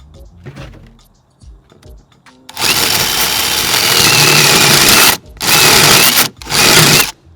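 Power drill boring into plywood in three runs: a long one of about two and a half seconds, then two shorter ones, stopping briefly between them. The hole is being enlarged with a bit that isn't the proper tool for it.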